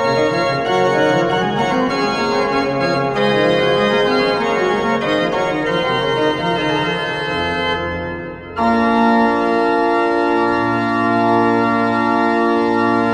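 Metz Cathedral's Renaissance triforium pipe organ playing a lively dance: quick running notes in the bass under held chords. About eight seconds in there is a brief break, then a long held chord.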